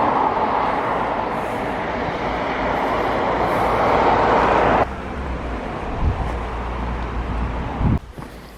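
A road vehicle passing close by, its tyre and engine noise swelling for about five seconds, then stopping abruptly. After that, a quieter low, steady rumble.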